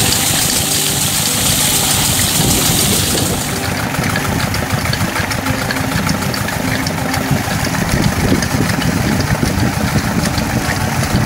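Tubewell pump engine running steadily, with water gushing from the outlet. A strong high rushing hiss drops away about three seconds in, while the engine runs on.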